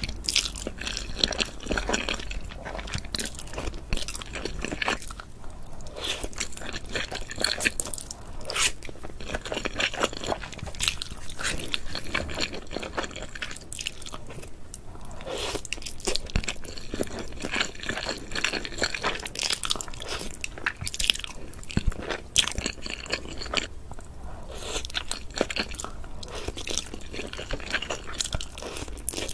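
Close-miked eating of black bean sauce noodles (jjajangmyeon): slurping, biting and wet chewing, full of quick sharp clicks and smacks.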